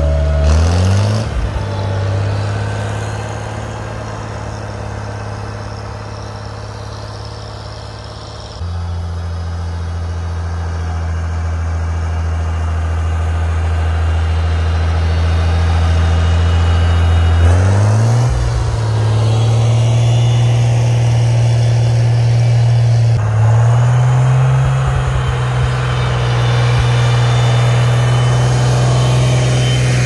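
Farmall 756 tractor's six-cylinder engine running steadily while plowing snow with a rear blade. Its pitch rises briefly about a second in and again a little past halfway, as the throttle is opened.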